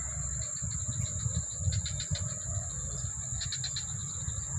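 Steady, high-pitched drone of insects, with short bursts of chirping about two and three and a half seconds in, over a low rumble.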